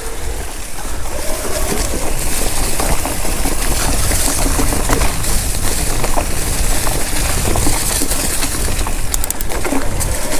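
Specialized Kenevo electric mountain bike riding down a dirt singletrack. Tyres roll over the trail and the bike rattles in quick clicks over bumps, under a steady rumble of wind on the camera microphone.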